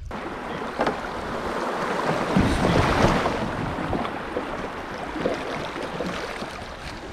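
Water rushing and splashing around a kayak as it runs a shallow river riffle, swelling to its loudest about three seconds in, then easing.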